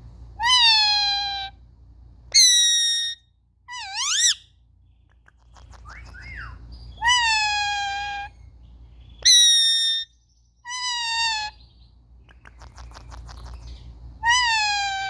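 Indian ringneck parakeet giving about seven loud calls, each lasting up to about a second, with one or two that sweep up and down in pitch.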